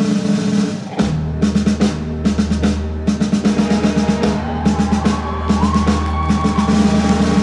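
Live rock band with a drum kit playing. About a second in, the bass and a driving drum beat come in under held chords, and a high held note bends upward near the middle.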